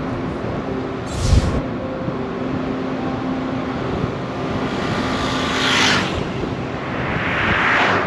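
Road traffic going by: a steady rush of noise with vehicles swelling past around the middle and near the end, and a brief loud knock or gust about a second in.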